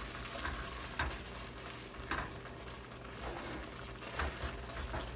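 Wooden spoon stirring and scraping a thick, dried-down coconut and sweet potato sweet (dulce de coco con batata) against an aluminium pot, in irregular strokes about once a second.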